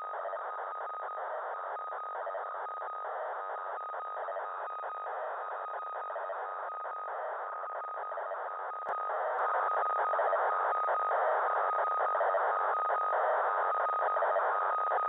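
GRAW DFM-09 radiosonde's FSK telemetry signal near 402 MHz, heard as the receiver's demodulated audio from an RTL-SDR: a continuous hissing data buzz with a steady whistle tone through it. It gets louder about two thirds of the way through.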